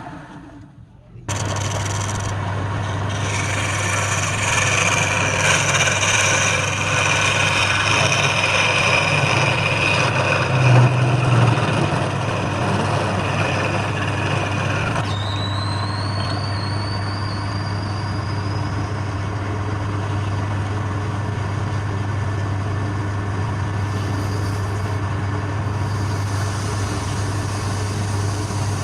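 An electric wood lathe runs with a steady motor hum, starting abruptly about a second in. A harsher hiss rides on top and stops suddenly about halfway through, and a faint rising whine follows.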